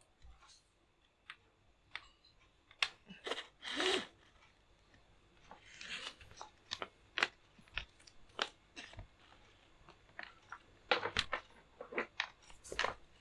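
Irregular light clicks and rustling from USB cables and a small USB-C hub being handled while a keyboard's USB plug is worked into one of the hub's ports. The clicks come thicker in the second half.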